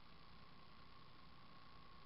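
Near silence: a faint steady hiss with a thin, steady high whine.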